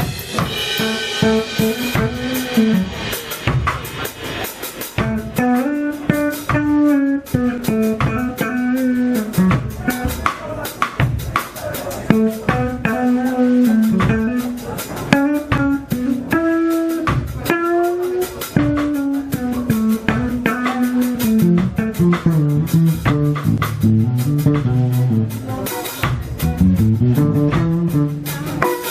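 Live instrumental jazz trio playing: a melodic lead line over drum kit and bass, with the bass climbing in steps near the end.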